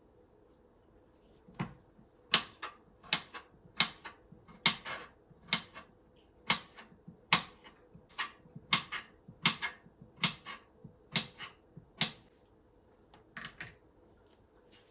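A series of sharp taps and knocks, one or two a second for about ten seconds, then a short pause and two more near the end.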